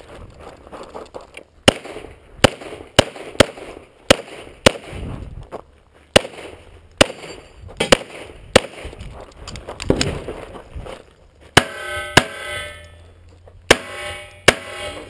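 Rapid fire from an EAA/Tanfoglio Witness Match 9mm pistol: about fifteen sharp shots in quick strings, often about half a second apart, with short pauses between strings. A ringing tone lingers after several of the shots near the end.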